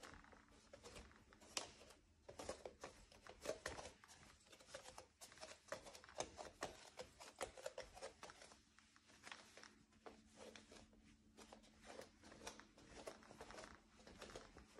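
Faint creaking and clicking of wooden floorboards under bare footsteps, many small irregular creaks and ticks as the weight shifts from step to step.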